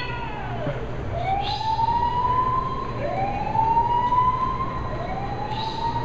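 A siren wailing, its pitch sweeping up and levelling off about every two seconds, over a steady low hum.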